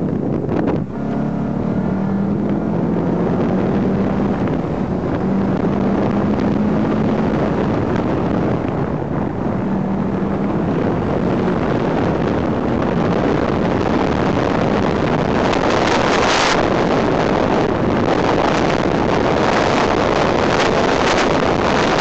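Car engine pulling hard, throttle on and off, as the car is driven through an autocross cone course, with heavy wind rush on the microphone. The wind noise grows louder in the second half and covers the engine.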